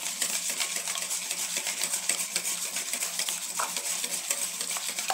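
Wire whisk beating margarine and eggs in a stainless steel bowl: a fast, even run of metal clicks and scrapes as the wires strike the bowl.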